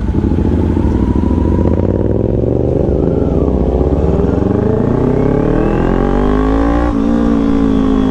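Kawasaki Ninja sport bike's engine pulling away under acceleration, heard from on board. Its pitch climbs steadily for several seconds, then breaks briefly at a gear change about seven seconds in and carries on steadier.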